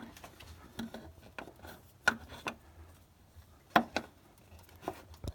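Scattered small clicks and knocks, the loudest about four seconds in, as a new DENCKERMANN spin-on oil filter is turned by hand onto its threaded mount on the engine.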